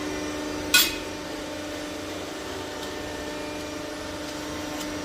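Steady hum of fabrication-shop machinery, with a sharp metallic clank about a second in.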